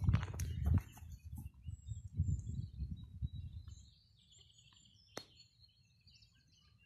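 Faint bird chirps outdoors, over low rumbling and clicking noise on the microphone for the first few seconds, with a single sharp click about five seconds in.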